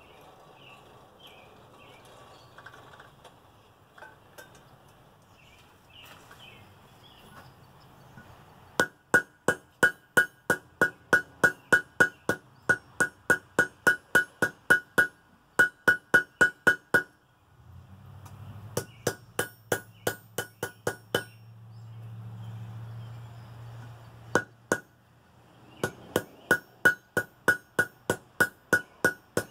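Hand hammer striking a white-hot railroad-spike and spring-steel billet on an anvil to set a forge weld. The blows come quickly, about three a second, with a bright ring, in runs broken by short pauses. A low hum comes in partway through.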